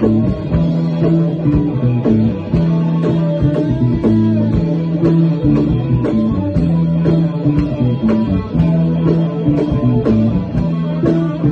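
Live band playing a blues-rock jam: guitars and bass over drums keeping a steady beat.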